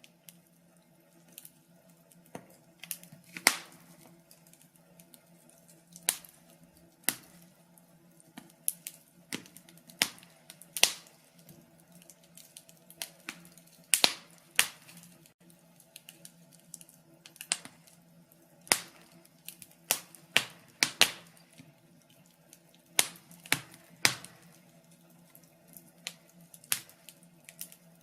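Wood fire crackling in a fireplace: irregular sharp pops and snaps, some much louder than others, over a faint steady background.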